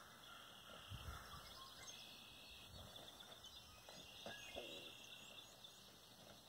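Near silence: faint outdoor ambience with scattered faint bird chirps and a brief low rumble about a second in.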